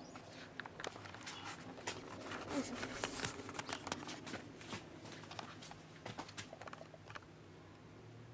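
Camera handling noise: fingers brushing and tapping on the camera body as it is moved, a faint scatter of irregular clicks and rustles, busiest in the middle few seconds.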